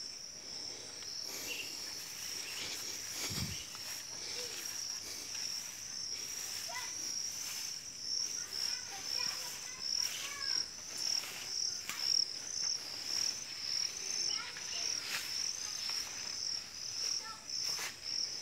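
Insects trilling in a steady, high-pitched drone that turns into a pulsing chirp at about two beats a second partway through.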